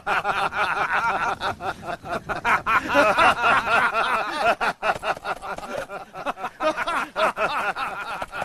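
Several men laughing loudly together in quick, repeated ha-ha pulses, without a break.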